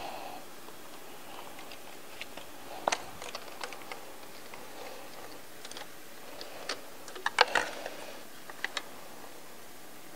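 Scattered small clicks and taps of hand tools (pliers and a screwdriver) and plastic wiring-harness clips being worked in an engine bay. The loudest come in a quick cluster about seven and a half seconds in.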